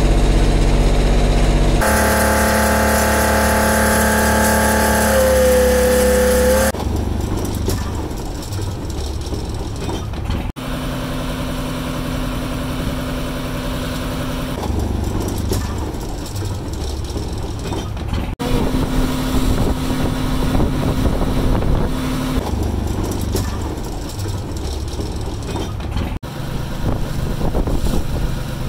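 Fishing boat's engine running with a steady drone. Its tone changes abruptly several times, and in the later part a rougher, noisier wash lies over it.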